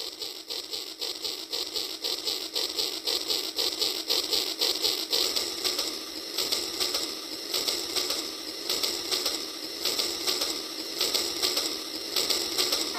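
Rail King toy train running along its plastic track, its motor, gears and wheels making a fast, even clicking of about four or five clicks a second.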